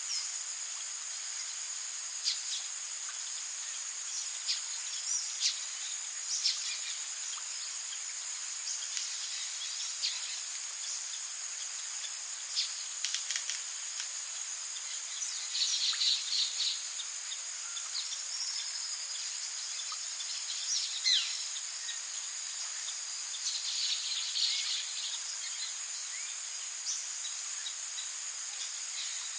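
Rainforest ambience: a steady, high-pitched insect trill over an even hiss of rain, with scattered short bird chirps and two brief flurries of louder calls, about halfway through and again later on.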